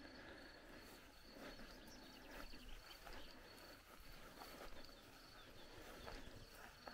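Near silence, with faint high insect chirping repeating a few times a second.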